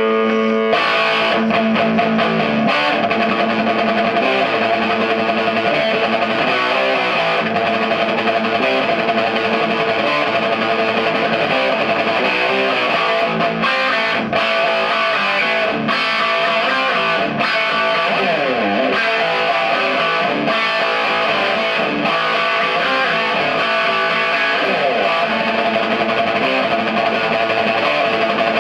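Overdriven electric guitar played through a 1986 Marshall 4210 JCM800 50-watt 1x12 tube combo, a continuous run of riffs and chords with a couple of sliding pitch drops. The amp is running properly again after its V1 and V2 preamp tubes were replaced.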